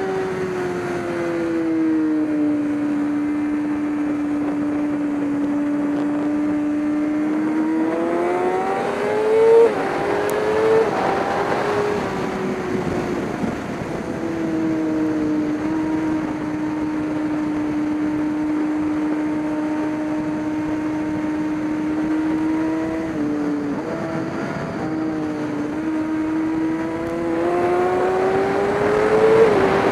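Race car engine running under load: its note drops and holds steady for several seconds, climbs under acceleration about eight to ten seconds in, holds steady again for a long stretch, then climbs once more near the end.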